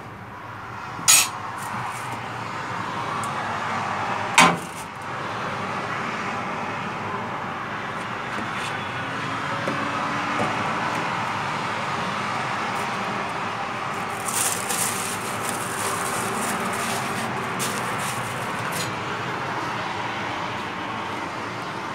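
Shawarma-shop kitchen noise: a steady rushing hum that swells about two seconds in, with sharp clinks and knocks of utensils and containers, several of them in a cluster near the end.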